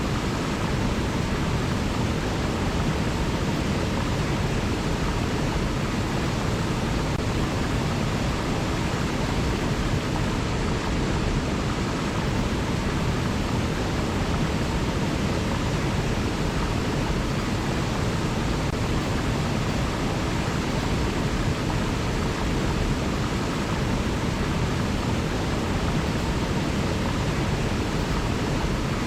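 River water rushing steadily: an even, unbroken noise with no separate splashes or other sounds standing out.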